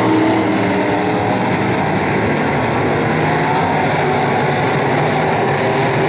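Several dirt-track race car engines running together at low revs, a steady mixed rumble with no sharp revving.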